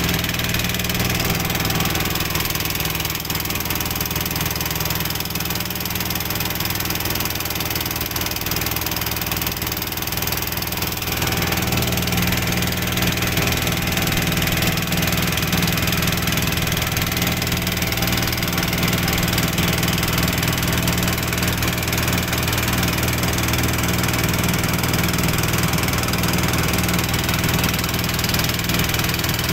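Small wooden boat's engine running steadily while the boat moves along, a low, even hum that gets a little louder about eleven seconds in.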